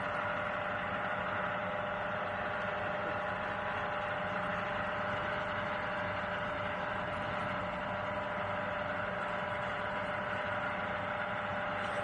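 A steady mechanical hum with a constant mid-pitched whine that does not change.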